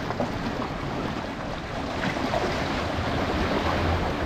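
Sea waves washing and splashing against concrete breakwater tetrapods, a steady rush that grows a little louder about halfway through, with wind buffeting the microphone.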